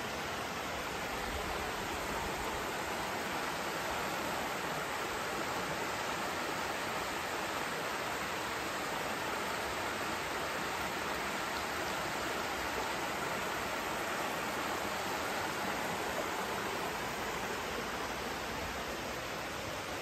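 Shallow river water rushing steadily over a broad bed of smooth bedrock: a natural water slide, heard as an even, unbroken rush.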